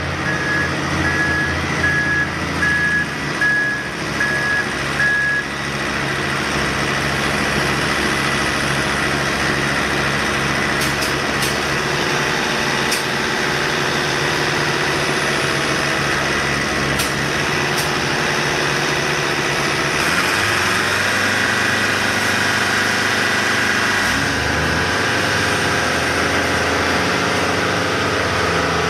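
Heavy road-construction machinery with its engines running steadily. A reversing alarm beeps at an even pace and stops about five seconds in.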